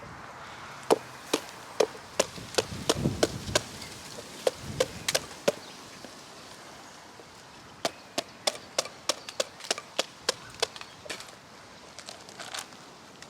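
Hand-made 5160 steel cleaver chopping repeatedly into a squash: two quick runs of sharp strikes, one a few seconds in and one past the middle, about two to three blows a second. A low rumble of wind on the microphone sits under the first run.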